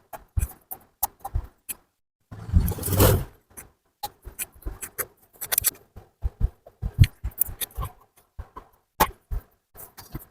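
Metal engine parts and hand tools clinking, knocking and scraping in irregular short strokes, with a longer rough scrape about two and a half seconds in.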